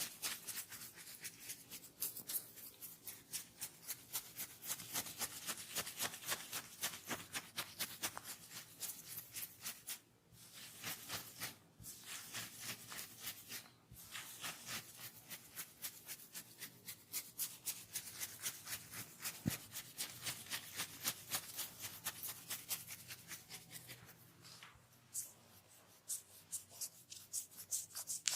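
Hands rubbing and stroking a person's head and hair during a head massage: quick, rhythmic friction strokes, a few a second, with a few short pauses.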